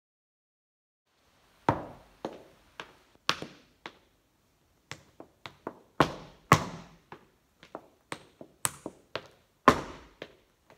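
Heeled flamenco shoes striking a wooden floor in sevillana footwork: sharp taps and heavier stamps in an uneven rhythm, each with a brief decay. It starts about a second and a half in, and the loudest stamps fall near the middle and towards the end.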